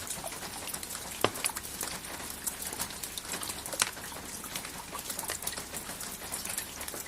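Steady rain, with many separate drops ticking on a hard surface and a few louder drips standing out, one about a second in and one near the middle.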